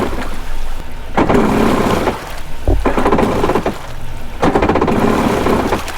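Yamaha WaveRunner electric starter cranking the engine in three rough bursts, the engine not catching. It sounds unhealthy, like the starter is dying, which the crew say is typical of these starters.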